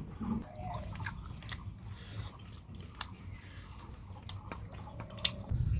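A person eating a meal of fish curry and rice: chewing with scattered small wet clicks and smacks.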